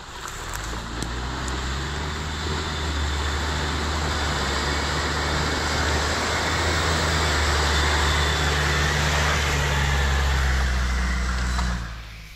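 Jeep Wrangler engine droning steadily as the vehicle drives through deep mud and slush, with tyres churning mud and water. It grows louder as it comes closer, then drops off abruptly near the end.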